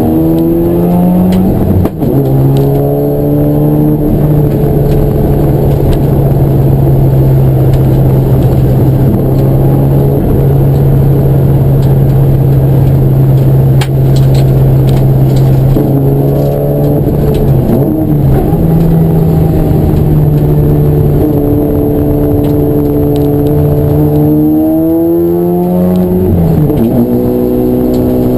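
Race car engine running hard. The revs rise and then drop sharply at a gear change about two seconds in, hold a steady pitch for a long stretch, then climb again to another sharp drop near the end.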